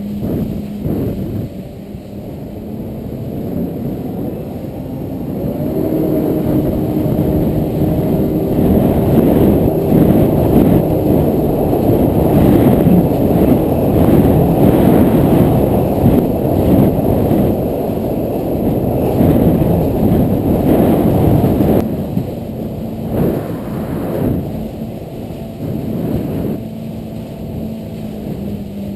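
Yamaha WaveRunner jet ski engine speeding up about five seconds in, running loud and rough at speed for about fifteen seconds, then easing back to a steadier, quieter note.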